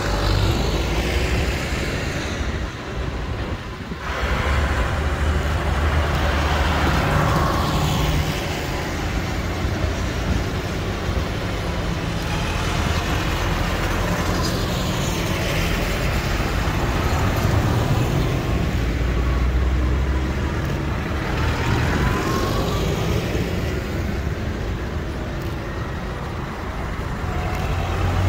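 A procession of farm tractors, including a New Holland 7740, Massey Fergusons and a Claas, driving past one after another: diesel engines running and tyres hissing on the wet road, each swelling and fading as it goes by.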